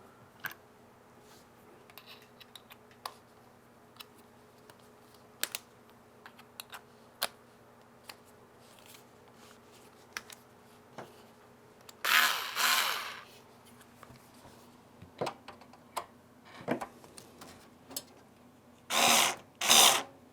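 Black & Decker power drill driving the screws that hold a PC power supply, running in two short bursts, one about halfway through and one near the end. Scattered clicks and knocks of handling come between them.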